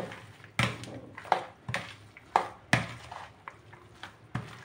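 Rice noodle salad being tossed in a plastic bowl with a long-handled utensil: irregular knocks and scrapes of the utensil against the bowl, about seven over the stretch, amid the soft wet sound of dressed noodles being turned.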